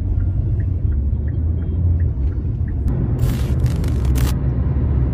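Steady low rumble of a taxi's cabin while driving, with a light regular ticking about three times a second through the first half. About three seconds in, a hiss swells up for a little over a second and fades.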